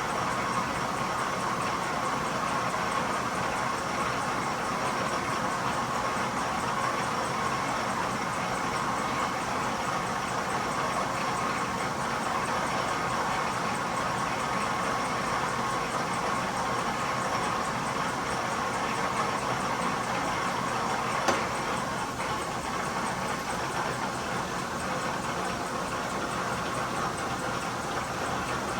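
1943 South Bend metal lathe running steadily while cutting a deep internal thread, with one sharp click about two-thirds of the way through.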